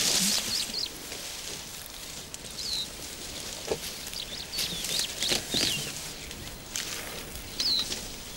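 Grass rustling and crackling as an elephant calf plucks tufts with its trunk, with several short high bird chirps.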